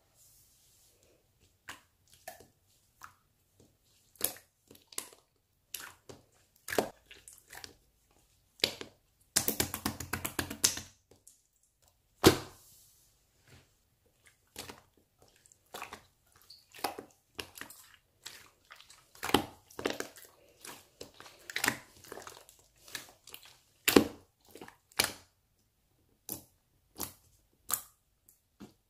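Marbled slime being squished and pressed by hand, making irregular sticky pops and clicks, with a quick run of crackles about nine to eleven seconds in.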